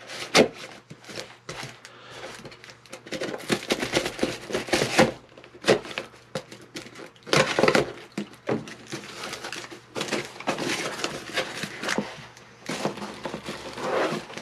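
Pocket knife slitting the packing tape on a cardboard box, with irregular scraping, tearing and rustling of tape and cardboard. Near the end, the cardboard flaps are pulled open and a hand rummages inside the box.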